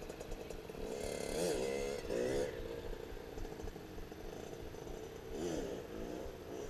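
Small dirt bike engine running with a steady drone, revved up and back down in short blips: twice about a second and two seconds in, and once more near the end.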